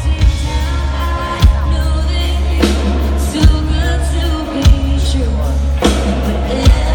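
Pop-country band music in a passage without lead vocals: a steady bass with a heavy drum hit every second or so and a melodic line above.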